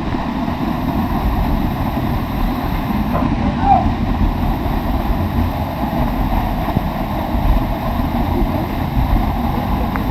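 Steady rush of a waterfall's falling water, with a short call from a voice a few seconds in.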